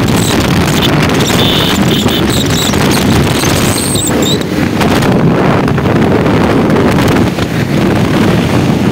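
Motorcycle being ridden, its engine and road noise buried under heavy wind buffeting on the microphone.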